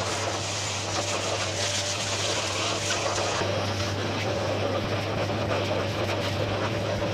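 Workshop dust extractor running steadily with a low hum and rushing air as its hose vacuums dust from a wall. The hiss of the air changes tone about halfway through as the nozzle moves.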